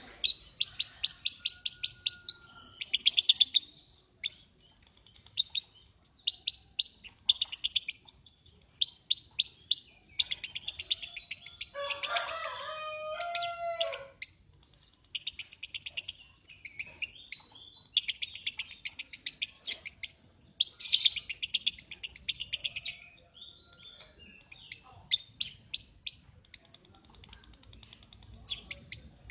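Lovebird chattering in rapid, buzzy trills, delivered in bursts of one to two seconds with short pauses between. About twelve seconds in, a lower, harsher call lasting some two seconds sounds over it.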